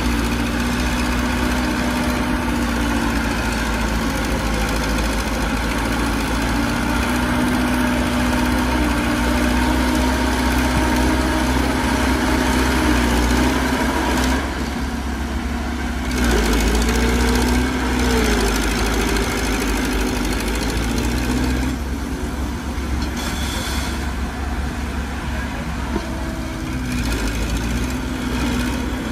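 Heavy diesel engines of earthmoving machinery running, the engine note shifting as they work, with a brief glide in pitch about halfway through.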